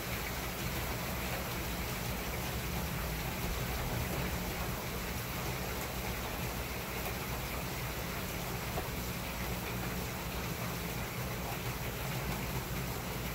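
Steady rain falling, an even, unbroken hiss with no thunder.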